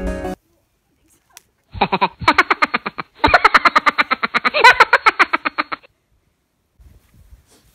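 A woman laughing hard in rapid, evenly spaced bursts, in two long runs with a short break about three seconds in.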